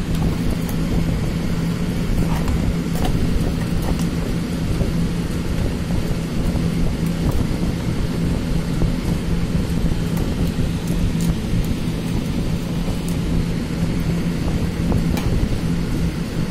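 Steady machine hum and rumble with a constant low tone, with a few faint clicks.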